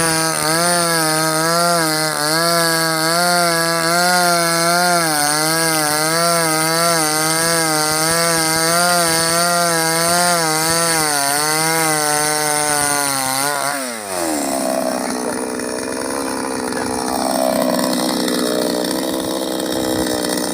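Two-stroke chainsaw running at full throttle while cutting oil palm wood, its pitch wavering steadily under load. About two-thirds of the way through, the revs drop sharply and the saw settles to a lower, steady run.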